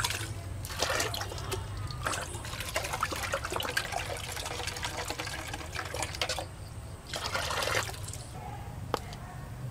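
Water scooped up in a plastic jar and poured back into a plastic basin of live climbing perch, splashing in several bursts, the longest from about two seconds in to past six. A single sharp click near the end.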